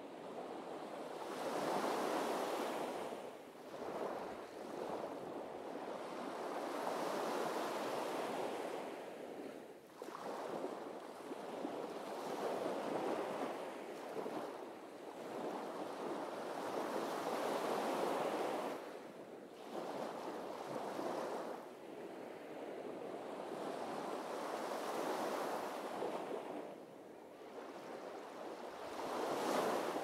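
Small waves breaking and washing up a sandy beach. The rush of surf swells and falls back in a new surge every few seconds.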